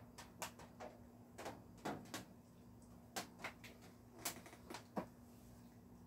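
Scattered raindrops hitting the studio roof: irregular sharp ticks, about a dozen, at uneven intervals, over a faint steady hum.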